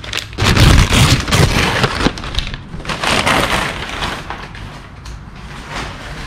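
Packing paper crinkling and rustling as a plastic brake duct is pulled out of it. It is loudest in the first two seconds, comes again about three seconds in, then fades.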